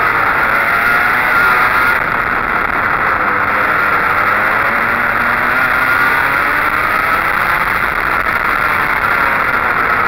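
Go-kart engine heard from on board at speed, its revs repeatedly climbing and then dropping as the kart accelerates out of corners and lifts or brakes into the next ones.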